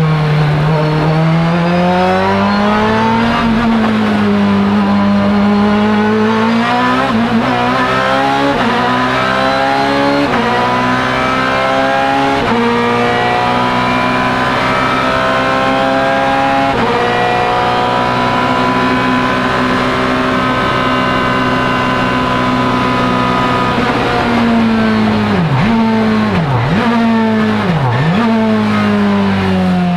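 Ferrari F430 GT2/GTC's 4.0-litre mid-mounted V8 race engine heard from inside the cockpit under hard acceleration, its note climbing and breaking with quick shifts of the six-speed sequential gearbox. Near the end the note drops sharply three times as the car brakes and shifts down.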